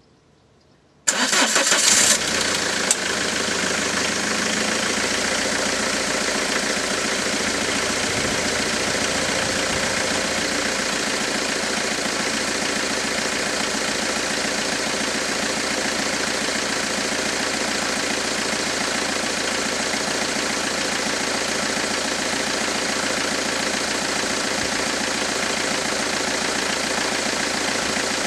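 A 2001 Citroën 2.0-litre HDi 90 hp four-cylinder turbodiesel cold-starting: about a second in it cranks briefly and catches, then settles into a steady diesel idle.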